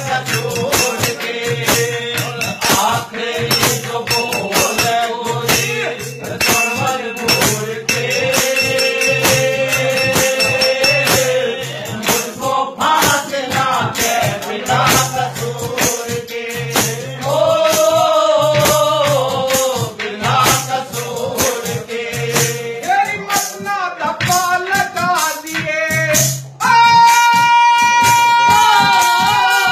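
Haryanvi ragni folk singing by a man, over rhythmic percussion and a steady held drone. Near the end he holds one long, loud note.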